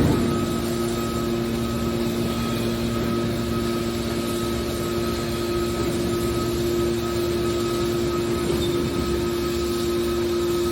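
Hydraulic car baler running, its hydraulic power unit giving a steady hum, with one sharp metallic bang right at the start.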